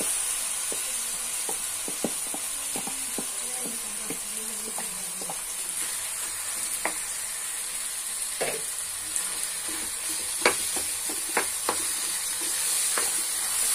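Wooden spatula stirring boiled potato chunks into onion-tomato masala in a pan, over a steady frying sizzle. Irregular taps and scrapes of the spatula against the pan come more often in the second half.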